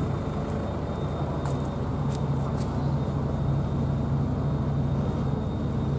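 A machine's steady low hum, like an engine or generator running, with a faint steady high whine above it and a few faint clicks.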